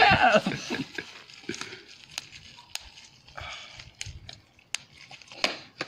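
Plastic bubble wrap rustling and crinkling as it is handled and a piece of cardboard is pulled out of it, with several scattered sharp clicks.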